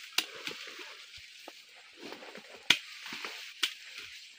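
A curved hand blade striking cassava roots to cut them off their uprooted stem: three sharp chops, the loudest a little past halfway.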